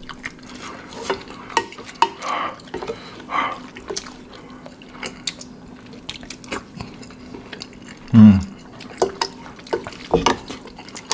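Mukbang eating sounds: a wooden spoon and fork clicking and scraping on a plate, with a few wet slurps of noodles and sauce. A short, low voice sound about eight seconds in is the loudest thing.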